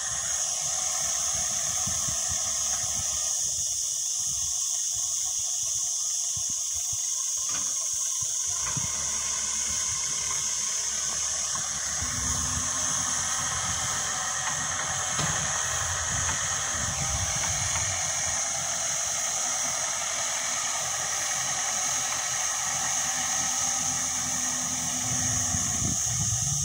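Backhoe loader's diesel engine running as the machine moves about the site, heard as a steady low drone that grows fuller about halfway through, under a constant high-pitched hiss.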